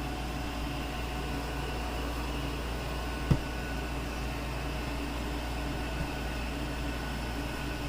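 Steady background hum, with one short knock a little over three seconds in and a fainter tap near six seconds.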